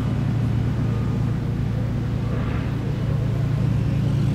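Steady low rumble of a large cruise ship under way, heard at its stern as its propulsion churns the wake.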